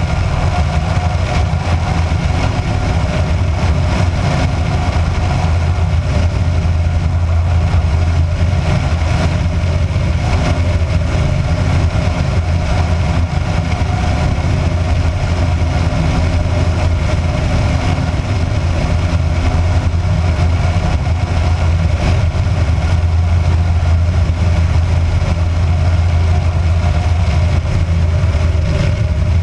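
Kitfox light aircraft's engine and propeller droning steadily in flight, with rushing wind over the outside-mounted camera.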